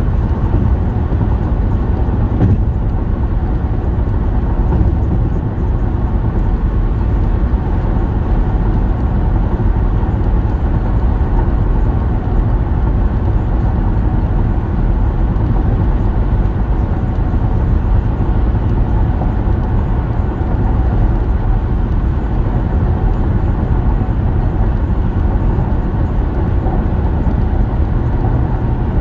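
Steady cabin noise of a car cruising at freeway speed, a deep even rumble of road and engine noise heard from inside the car.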